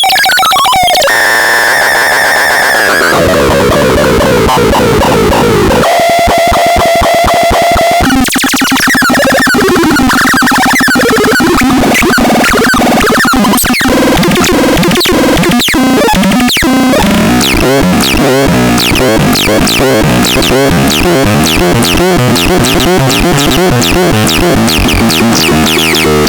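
Baltarel Ultra Max electronic sound unit playing a sequence of loud synthesized effects. It opens with a falling sweep and a fast buzzing pulse, then wandering tones. From about two-thirds in comes a rapid run of falling chirps, several a second, over a low warble.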